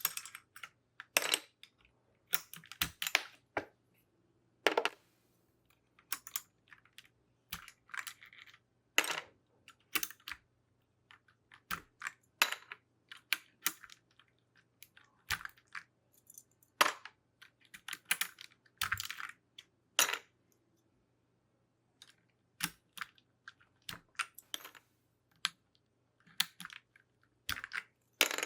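Plastic keycaps being pulled off a mechanical keyboard, a run of sharp clicks and clatters at irregular intervals with short pauses between groups.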